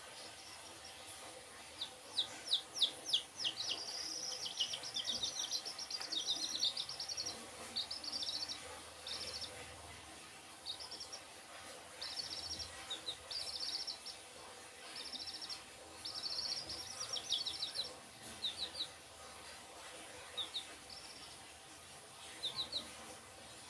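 Young chicks peeping: short, high, falling chirps and quick trills in bursts, loudest a couple of seconds in, over a faint steady hum.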